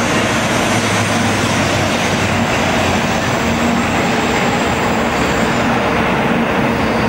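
Tokaido Shinkansen bullet train pulling slowly into a station platform: a steady rolling rumble and hiss from the passing cars, with a faint low hum that comes and goes.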